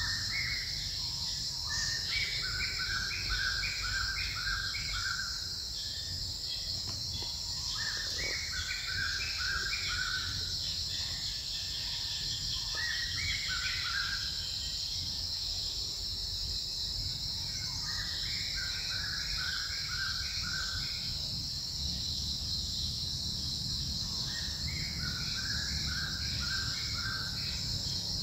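Forest ambience: a steady high-pitched insect drone, with a bird repeating a short phrase of six or so quick, evenly spaced notes every five seconds or so.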